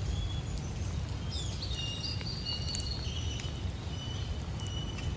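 Several birds chirping and whistling in short high notes that overlap more densely from about a second and a half in, over a steady low rumble.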